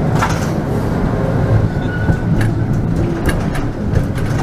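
Tram running over a track junction, heard from the driver's cab: a steady low rumble of wheels on rail with several sharp clacks as the wheels cross the points and crossings.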